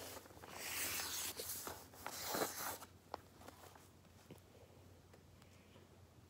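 Felt-tip marker scratching and rubbing across paper in a few strokes, then a couple of light ticks.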